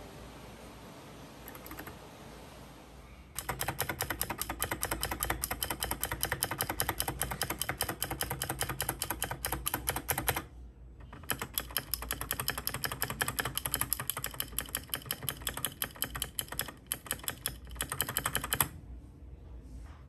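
Keychron K6 mechanical keyboard being typed on rapidly, a dense run of key clacks. It starts about three seconds in, stops briefly near the middle, then resumes until near the end. Its stabilizers have had their two bottom parts clipped to stop them rattling.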